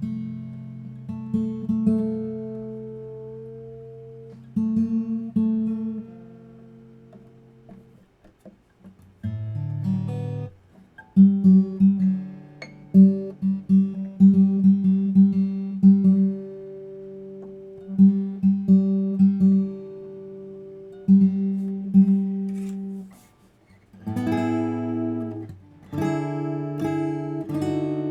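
Guild JF-30 jumbo acoustic guitar being played: picked notes and ringing chords that die away, then fuller strummed chords near the end.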